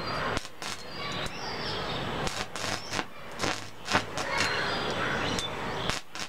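Electric arc from a homemade 230 V salt-water welding machine crackling and popping irregularly as the thin wire electrode is touched to a steel bar, throwing sparks.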